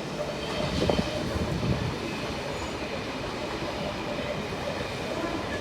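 NSW TrainLink V-set electric intercity train running through the station: a steady rumble of wheels on rail with a faint steady tone, a little louder about a second in.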